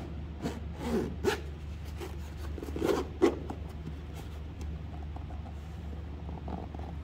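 Zipper on a fabric-covered GoPro carrying case being pulled open, in a few short rasps with handling rustles and small clicks. A low steady hum runs underneath.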